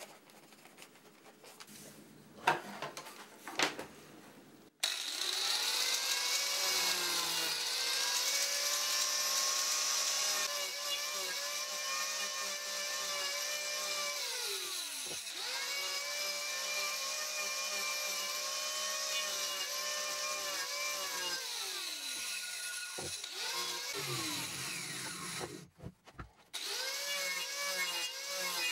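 Two knocks, then an angle grinder fitted with a GRAFF Speedcutter saw-chain carving disc starts about five seconds in and cuts into an oak blank. Its motor whine sags in pitch each time the disc bites under load and recovers when it eases off. It stops briefly near the end and starts again.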